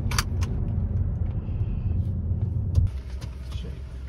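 Car cabin rumble from the car's motion, with a few small clicks about a second in and a sharp knock near three seconds in, after which the rumble drops lower and quieter.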